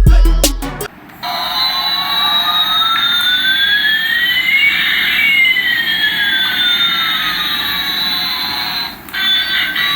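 Jet-engine sound: a steady rushing hiss with two whining tones, one falling and one rising, that cross in the middle, as from a toy airliner's sound effect. Background music plays briefly at the start and returns near the end.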